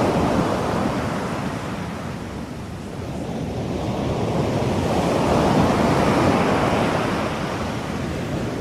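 Ocean surf: a steady wash of waves that eases off about two to three seconds in and swells up again around five seconds in.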